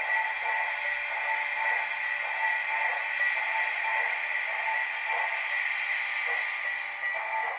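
Sound decoder of an HO-scale model of Canadian National steam locomotive 6060 playing through its small speaker: a steady rhythm of steam chuffs, two or three a second, over a constant hiss, with nothing in the low end.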